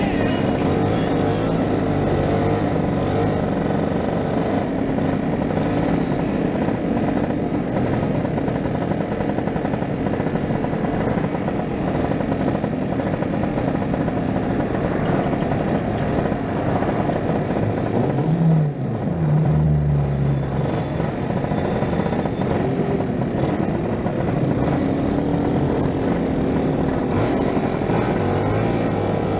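Motor scooter engine running at riding speed, heard from the rider's own machine, mixed with wind and road noise. About two-thirds of the way through, the sound dips briefly and the engine note changes before it settles again.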